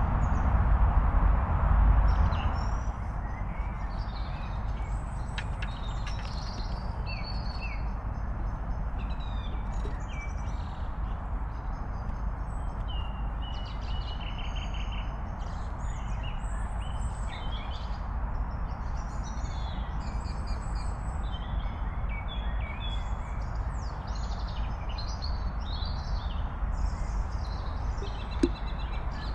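Several small songbirds chirping and singing, short varied phrases and trills throughout, over a steady low rumble. A louder hiss fills the first couple of seconds, and a single sharp click comes near the end.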